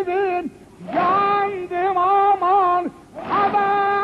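A single voice singing a devotional chant in long held, high notes with wavering ornaments, in phrases broken by short pauses.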